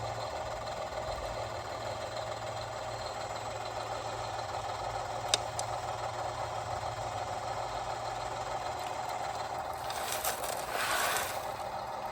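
Radio-controlled model construction machinery running with a steady, engine-like hum, with a sharp click about five seconds in and a brief scraping rush near the end.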